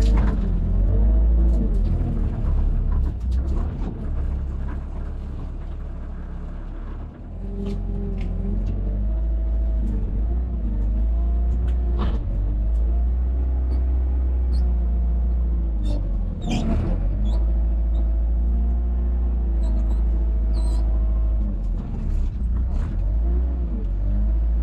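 Tractor engine running under changing load, its pitch rising and falling repeatedly, with a deep rumble and occasional sharp clicks and knocks.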